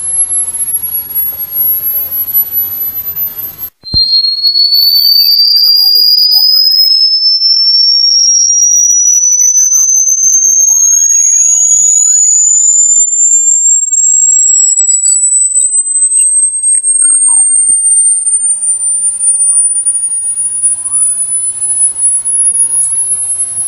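Electronic rat-repellent tone: a loud, very high-pitched pure tone over a hiss, which breaks off briefly about four seconds in, then restarts much lower and glides slowly and steadily upward in pitch.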